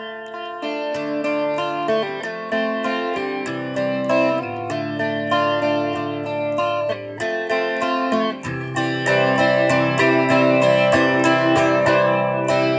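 A guitar playing the instrumental introduction to a song: picked notes and chords in a steady run, one note after another.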